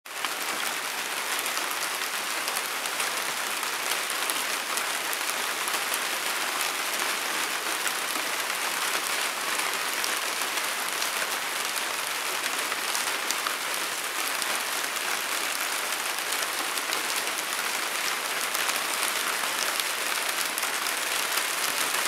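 Steady rain falling, a dense even hiss of many small drops.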